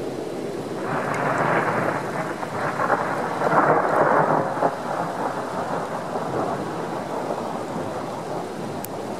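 Steam locomotive working hard as it hauls a passenger train, its exhaust a continuous rumble. It swells around three to four seconds in, then eases as the train moves off.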